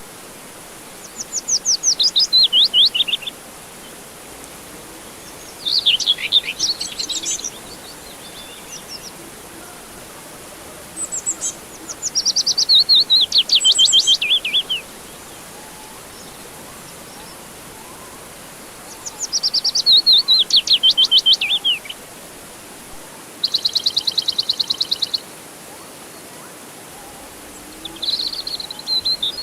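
A songbird singing repeated phrases of rapid, high notes that fall in pitch, each phrase one to three seconds long with pauses of a few seconds between. One phrase, a little past halfway, is a level trill instead. A steady soft hiss runs underneath.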